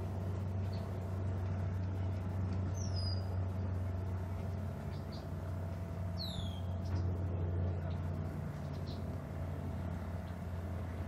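Low, steady engine hum that shifts slightly partway through. A few short, high, falling chirps sound over it, about three seconds in, around six seconds in, and again near the end.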